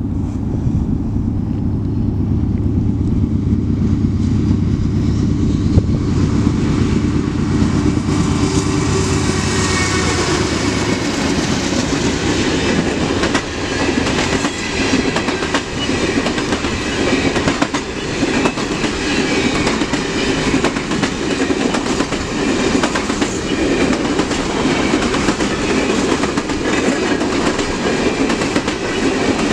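CN train passing at close range. For about the first ten seconds the diesel locomotives' engines give a steady low drone; after that the cars roll by with a steady clatter of wheels knocking over the rail joints.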